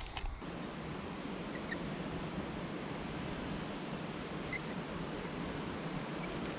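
Steady rush of flowing stream water, with a few faint short high chirps.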